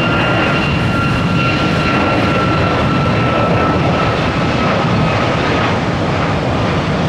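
Jet airliner engines running: a loud, steady rushing noise with a high whine that fades out about six seconds in.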